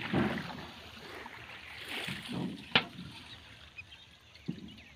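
Rustling noise in patches, with one sharp click a little under three seconds in and a softer knock near the end.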